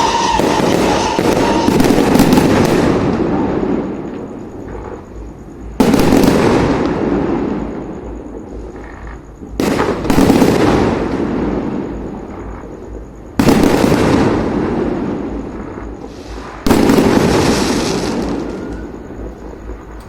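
Fireworks going off: a run of bangs and crackle fades out in the first few seconds, then four more volleys start suddenly, each dying away over two to three seconds.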